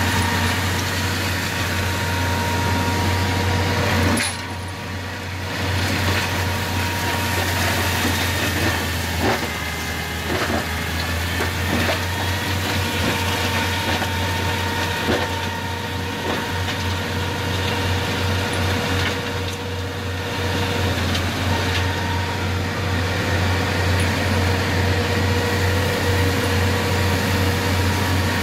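New Holland TVT155 tractor's diesel engine running steadily under load, driving a Maxer forestry mulcher whose rotor keeps up a steady whine, with a few knocks as it shreds brush. The level drops briefly about four seconds in and again around twenty seconds, as the load eases.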